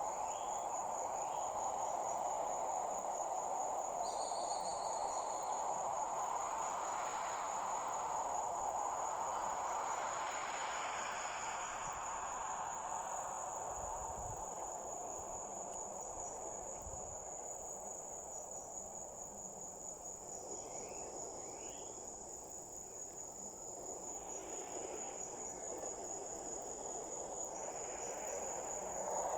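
Crickets trilling in a continuous high, steady chorus over a steady low rushing background noise.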